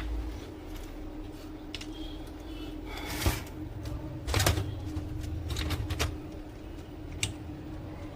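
Plastic laser-printer parts being handled and fitted by hand: a few separate clicks and knocks, with a low rumble of parts shifting between them, over a steady faint hum.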